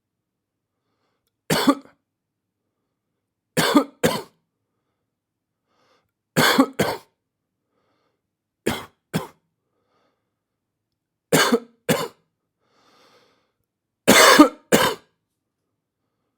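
A person coughing: a single cough, then five double coughs, about every two and a half seconds, with silence between.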